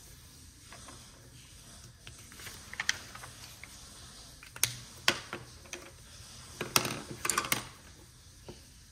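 Scattered light clicks and taps of small hard objects: a few about two and a half seconds in, two sharp ones near the middle, and a quick run of several about seven seconds in.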